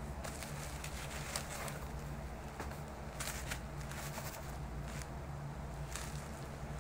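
Plastic bubble wrap crinkling and rustling in short bursts as it is unwrapped by hand, over a steady low hum.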